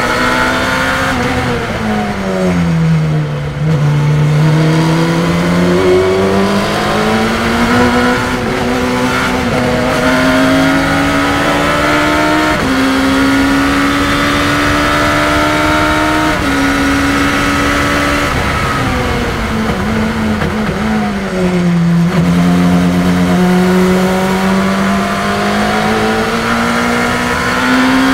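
Race car engine heard from the open cockpit at full lap pace. It revs up in the gears, shifts up from third to fourth on the straight, then drops in pitch under braking and downshifts to third, with a steady rush of wind and road noise underneath.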